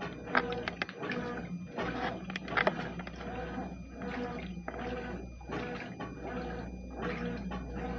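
Consul CWS12 top-loading washing machine agitating a load of clothes in water: the motor hums while the agitator swings back and forth, churning and sloshing the wash in a steady rhythm.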